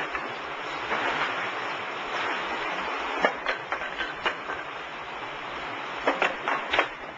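W & H tilt tray sorter running: a steady mechanical rush of trays travelling round the carousel track, with a scatter of sharp clacks from about three seconds in.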